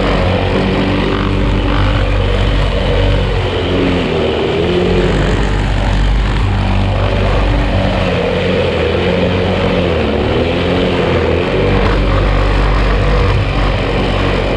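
Outils Wolf petrol lawn mower engine running steadily while cutting tall grass. Its pitch sags twice, about four and ten seconds in, as the engine is loaded down by the grass, then picks back up.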